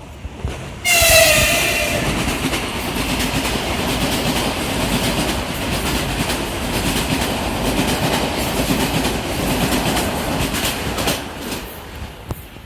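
Passenger electric train sounding a short horn blast about a second in, then rushing past for about ten seconds, with wheels clacking over rail joints. The noise drops away near the end as the train clears.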